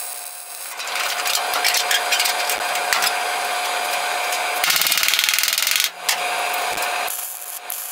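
Metalworking tool noise on sheet metal, a rough continuous scraping and rasping, with a louder burst of dense rapid crackle about five seconds in that lasts about a second.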